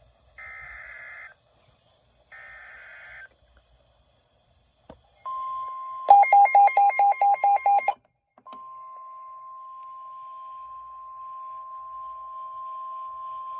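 NOAA Weather Radio alert signalling ahead of a new warning: two short buzzy digital data bursts (the SAME header), then the steady warning alarm tone. About six seconds in, a much louder rapid beeping cuts in for about two seconds, and then the steady alarm tone runs on.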